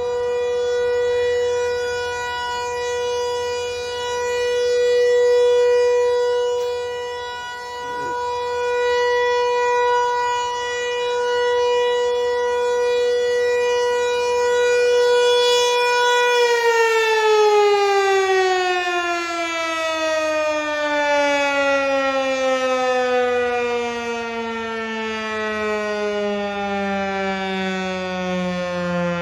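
Federal Signal 508-128 rotating warning siren holding a steady tone, the alert signal, its loudness swelling and fading as the horn rotates. About sixteen seconds in it is shut off and winds down, the pitch falling slowly as the rotor coasts.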